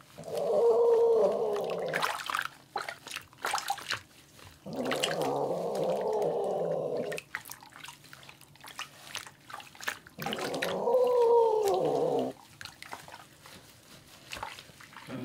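A cat meowing three times while it is being bathed, each meow long and drawn out, about two seconds, rising and then falling in pitch. Water splashes in the gaps between the meows.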